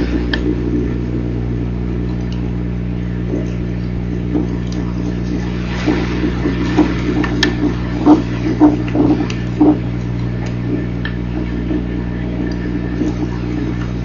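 Steady low electrical hum from a nest camera's microphone, with a cluster of short crackles and knocks about six to ten seconds in as a bald eagle shifts on the stick nest, settling over its egg.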